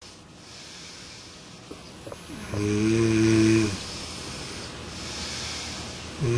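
A sleeping person snoring: one loud, pitched snore lasting just over a second, starting about two and a half seconds in. A softer, breathy stretch follows, and the next snore begins at the very end.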